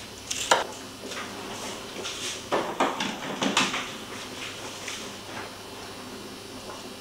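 Kitchen dishes and utensils being handled: a string of knocks and clatter, most of it in the first four seconds, then quieter.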